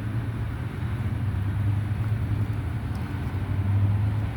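An engine running steadily with a low hum that swells slightly near the end.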